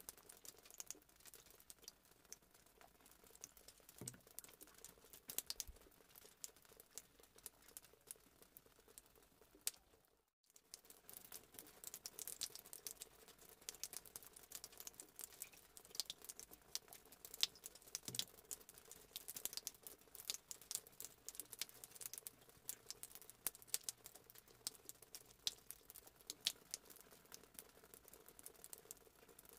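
Near silence: faint scattered clicks and taps from a spatula, spoon and bowls handling cake batter, over a low steady hum. The sound cuts out completely for a moment about ten seconds in.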